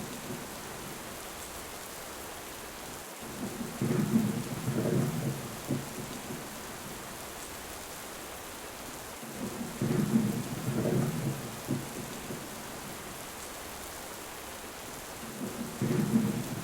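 Steady heavy rain with rolls of thunder rumbling in three times, about six seconds apart, each lasting a couple of seconds.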